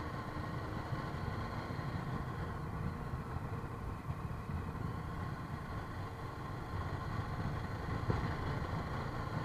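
Motorcycle engine running steadily, with a low rumble.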